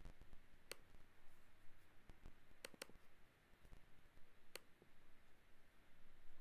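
Near silence in a small room, broken by four small sharp clicks, two of them close together.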